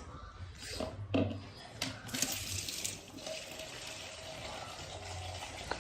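Water pouring steadily into a container, measured out with a one-litre jug; it starts about two seconds in, splashing most strongly for about a second, then runs on more evenly.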